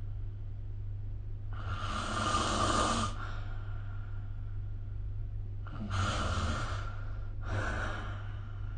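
A sleeping person snoring: three noisy breaths, a long one starting about a second and a half in and two shorter ones close together near the end, over a steady low hum.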